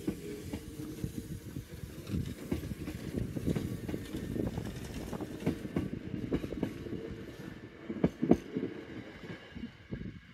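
Hankyu 6300 series electric train pulling out and running past at low speed, with a steady low hum and a run of wheel knocks over the rail joints. The knocks are loudest about eight seconds in, as the last cars pass, and the sound falls away near the end.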